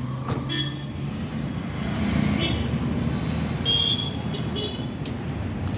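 Road traffic noise: a steady low rumble of passing vehicles, with a few short, faint high tones over it.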